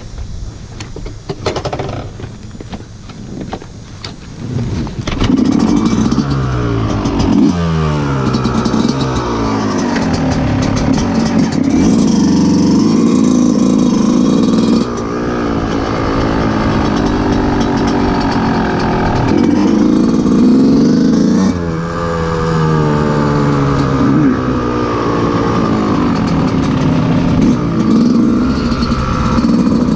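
Yamaha YZ125 two-stroke single-cylinder dirt bike engine: a few seconds of uneven knocks and clatter, then the engine catches about five seconds in and runs loud, revving up and down again and again as the bike moves off slowly.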